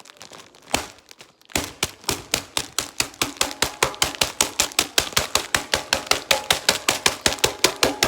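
An ice cream scoop pounding a sealed packet of dry ramen noodles, crushing the noodle block. A few scattered knocks, then from about a second and a half in, fast, even blows at about six a second.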